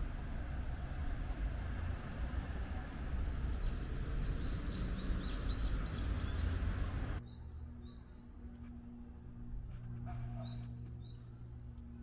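Roadside ambience: a steady rush of road noise with small birds chirping in quick series. About seven seconds in it drops abruptly to a quieter steady hum, with more bird chirps over it.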